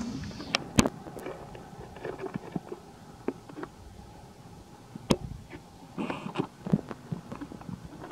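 A young macaque biting and chewing a quail egg: scattered sharp clicks and crunches of the shell, loudest a little under a second in, about five seconds in, and in a quick cluster just after six seconds.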